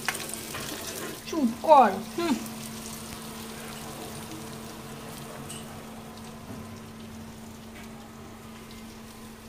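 Capsicum and onion pieces sizzling in oil in a non-stick kadai, stirred with a spatula, with a few scrapes in the first second. After that a steady, even sizzle over a low hum, slowly getting quieter.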